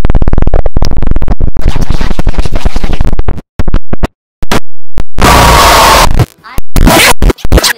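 Heavily distorted, clipped audio chopped into rapid stuttering repeats, cutting abruptly to silence twice midway. A burst of harsh, loud noise follows, then a few short choppy bursts: a glitch-edited collage of speech and music.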